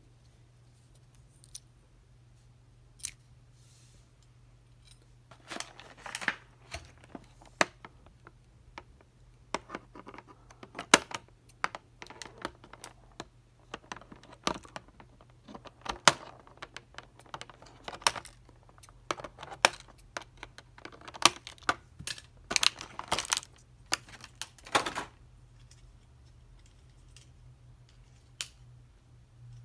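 Scissors snipping through a clear plastic packaging bag, with the plastic crinkling and rustling as it is handled: a busy run of sharp snips and crinkles through the middle, over a steady low hum.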